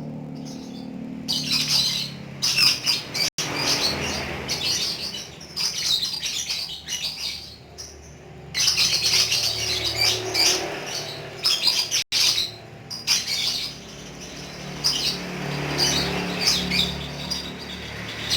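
Lovebird chattering in long, rapid, high-pitched runs (the 'ngekek' call), several bursts of a few seconds each with short pauses between.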